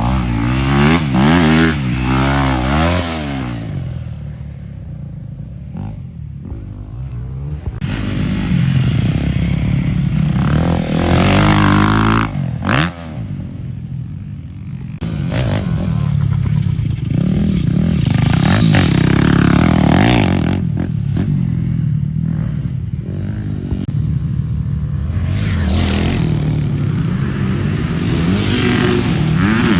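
Dirt bike engine revving hard and backing off over and over, its pitch climbing and falling with the throttle and gear changes, easing off for a few seconds about a quarter of the way in and again near the middle.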